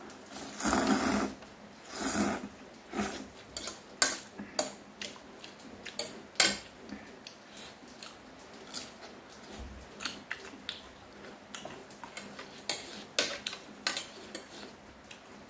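Two long slurps of soupy noodles near the start, then chewing with many sharp clicks of a metal fork and spoon against a ceramic plate.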